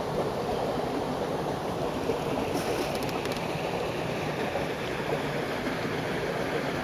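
Steady rushing of running water, with a few faint light clicks about three seconds in.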